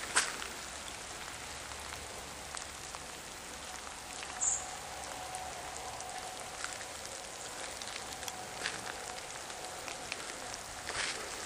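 Steady rain falling, a soft even hiss with scattered drip ticks. A brief high-pitched sound about four and a half seconds in.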